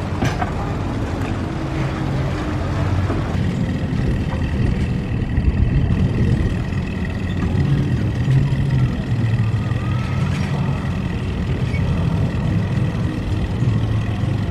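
Boat engine running at low speed, a steady low throb with a thin high whine joining about three and a half seconds in.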